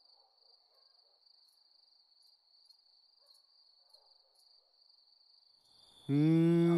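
Crickets chirring faintly and steadily in the night. About six seconds in, a loud held note of even pitch begins.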